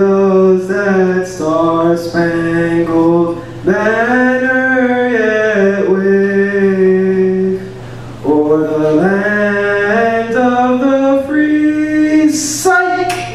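A man singing unaccompanied into a microphone: a slow melody of long held notes, with a short break between phrases about eight seconds in.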